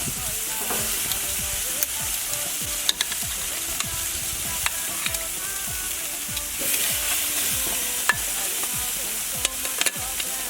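Meat sizzling on a barbecue grill: a steady crackling hiss with occasional sharp pops.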